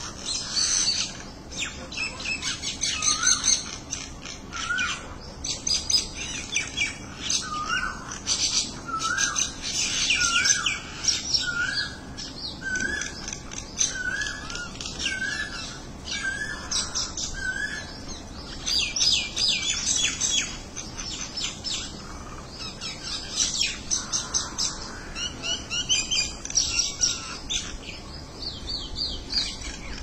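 Common mynas calling: a short, hooked whistled note repeated about once a second for the first half, over continual harsh chattering and squawky notes.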